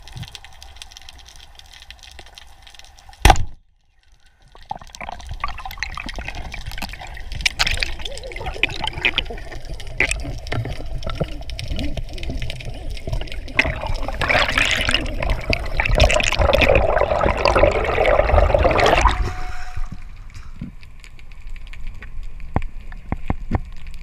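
Underwater rushing and bubbling water noise heard through a submerged camera during a freedive. About three seconds in comes one sharp, loud crack that fits a speargun firing. The water noise grows louder through the middle, is loudest for several seconds before the end, then eases.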